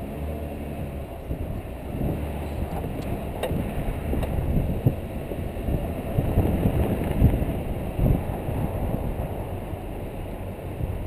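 Wind rushing and buffeting over the microphone of a GoPro mounted outside a moving Jeep Wrangler JK, with the Jeep's engine and tyres on sand running underneath.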